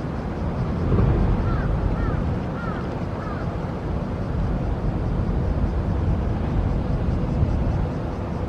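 Low steady rumble of a large ferry coming into port, with a faint steady hum. Early on, four short chirps sound about half a second apart.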